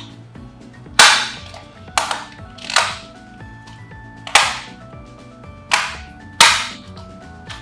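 Six sharp clacks of hard objects striking, at uneven spacing, each dying away quickly, over faint background music.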